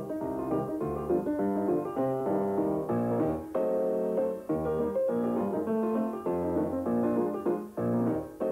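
Piano music, a busy passage of quick notes and chords.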